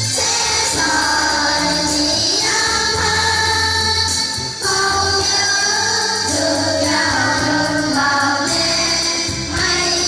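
A song: singing voices with instrumental accompaniment.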